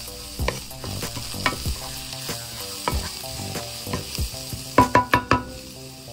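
Chopped onions and spices sizzling in a nonstick frying pan while a wooden spatula stirs and scrapes them, with a quick run of sharp knocks about five seconds in.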